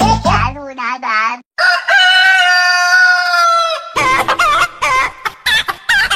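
A rooster crows in one long held call, followed by a quick run of hen-like clucks. The tail of a music track is heard at the start.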